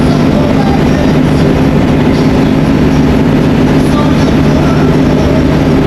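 Steady in-cab engine and road drone of a Marcopolo Viaggio coach cruising at highway speed, an even, unbroken hum.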